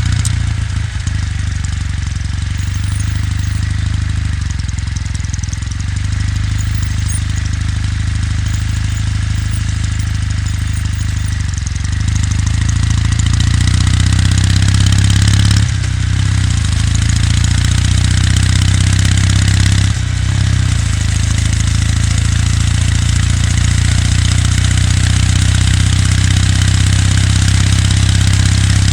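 Kawasaki W800's air-cooled parallel-twin engine running at steady, low revs, its exhaust note low and even under some wind and road noise. It grows a little louder about twelve seconds in, with two brief dips later.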